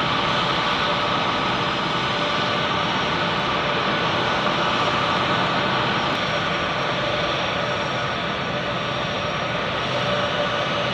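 Pratt & Whitney F117 turbofan engines of C-17 Globemaster III transport jets running at taxi power: a steady rush with a whine of several held high tones.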